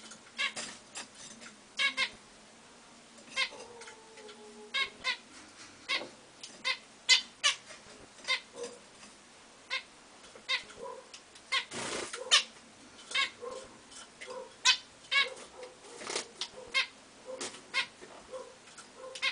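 Zebra finches calling: many short, nasal, pitched calls at irregular intervals, some in quick pairs, with a brief rustle about twelve seconds in.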